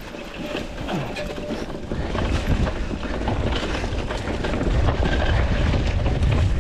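Mountain bike rolling down a dirt and stone singletrack, heard close from a chest-mounted action camera: tyres on loose ground with a constant rattle and clatter of chain and frame. A low wind rumble on the microphone grows stronger about two seconds in and again near the end.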